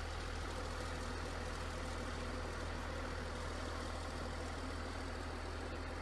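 Wheel loader's diesel engine idling steadily with a low, even hum.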